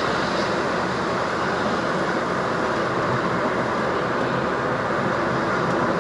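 Steady road, tyre and engine noise inside the cabin of a Ford Focus II 1.8 driving on the highway, while its engine runs with two of its four cylinders misfiring.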